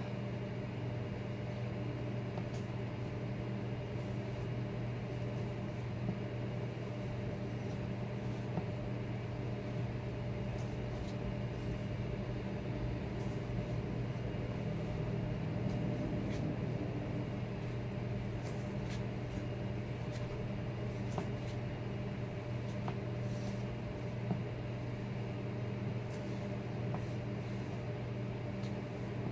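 Steady low mechanical hum of a running appliance, unchanging throughout, with a few faint ticks.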